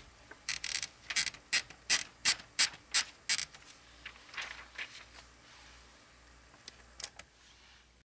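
Smith Corona typewriter's platen being turned by its knob, the line-space ratchet clicking about three times a second for about three seconds as the typed sheet is rolled out. This is followed by a softer rustle and two more clicks near the end.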